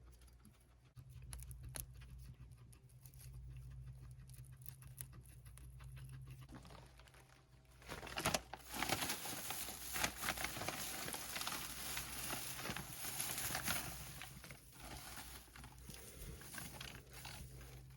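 Guinea pigs scurrying and rustling about in their cage. From about eight seconds in there are several seconds of louder, dense rustling and crackling with small clicks, which then tails off. A steady low hum runs underneath.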